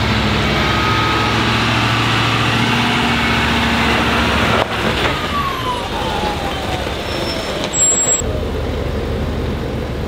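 Ford Super Duty pickup's Power Stroke diesel engine running under load as it pulls a trailer, with a steady engine note and a falling whine near the middle.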